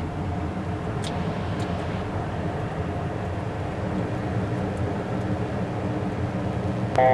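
Steady cockpit noise of a jet on final approach, with flaps and landing gear just extended. Near the end a loud steady electronic tone sounds for about a second.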